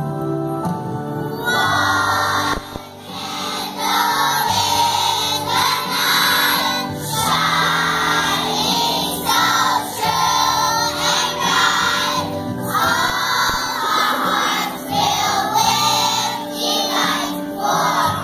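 Children's choir singing in unison over an instrumental accompaniment, the voices coming in about a second and a half in.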